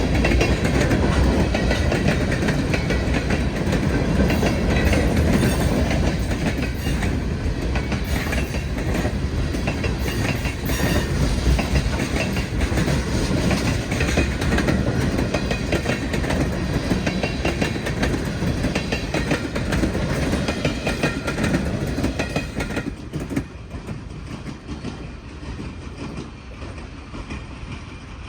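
New York, Susquehanna & Western freight train rolling past, its cars' wheels clacking over the rail joints; the sound drops away about 23 seconds in as the train moves off.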